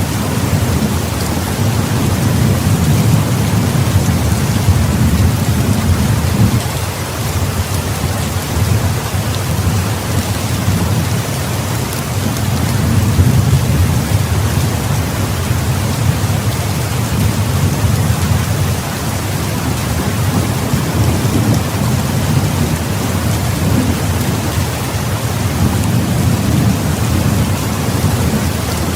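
Heavy rain pouring steadily, with thunder rumbling low underneath that eases off for a few seconds and then swells again.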